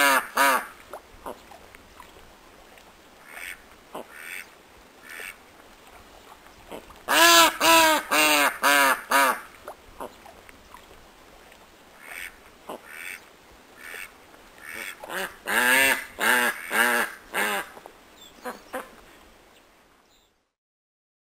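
Duck quacking close up: loud runs of quick quacks, one right at the start, another about seven seconds in and a third around sixteen seconds in, with fainter single quacks between. The calls stop about twenty seconds in.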